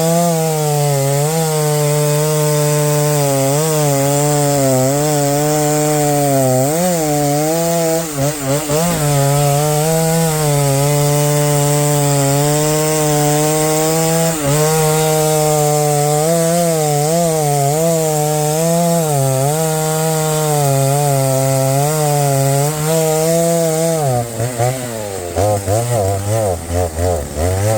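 Stihl MS 290 two-stroke chainsaw held at high revs while cutting through a maple log, its pitch sagging and recovering as the chain bites. Near the end the saw comes off the throttle and the revs fall away in several short blips.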